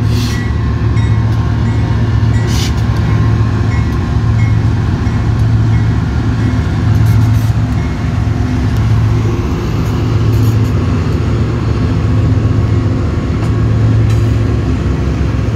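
BNSF double-stack freight train passing: its trailing diesel locomotives give a steady low engine drone over wheel and rail noise, and the intermodal container well cars roll by near the end.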